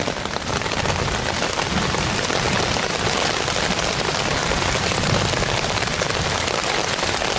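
Heavy rain pattering steadily on a poncho stretched overhead and on the leaf litter, a dense, even hiss with no let-up.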